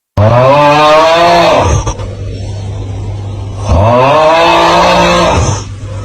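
A person snoring loudly: two long snores, each about a second and a half, rising in pitch at the start and then holding, about two seconds apart, over a steady low hum.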